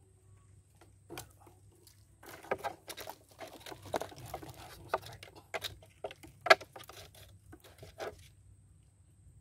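Close handling noises from hands working at a small shoulder pouch and fishing tackle: irregular rustling, tapping and clicking, with one sharp click about six and a half seconds in.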